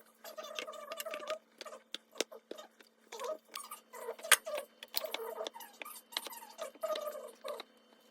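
Many sharp clicks and light clatter of small items and plastic containers being handled and set down, with short squeaks between them, over a faint steady hum.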